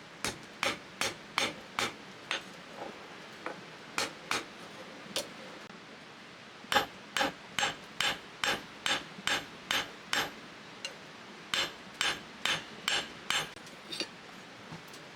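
A hand hammer striking a spring-steel dagger blade during forging: a run of sharp metal-on-metal blows, about two to three a second, with a pause of about a second near the middle. Some blows ring briefly.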